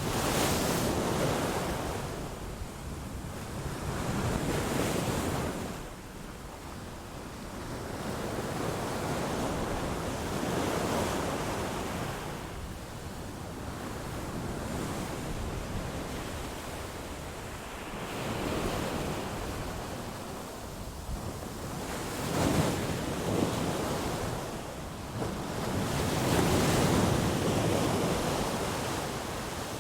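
Ocean waves washing onto a shore, a rushing surge that swells and falls away every four to six seconds.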